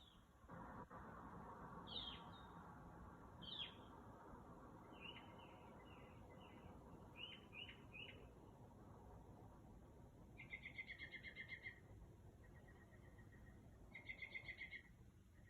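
A bird singing a varied run of faint phrases: sharp falling notes, a quick series of short chirps, a buzzy note and two fast trills of rapidly repeated notes, over a low background hiss.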